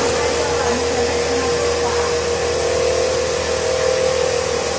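Automatic filter bag tubing and sewing machine running: a steady mechanical hum with a constant tone in it.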